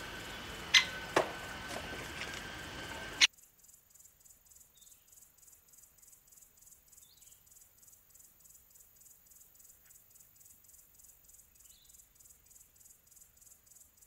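A few sharp knocks from a great spotted woodpecker pecking at a seed feeder, over steady outdoor ambience with high steady tones. About three seconds in this cuts off suddenly to faint insect chirping, a quick even pulse of a few beats a second, with a few faint short chirps.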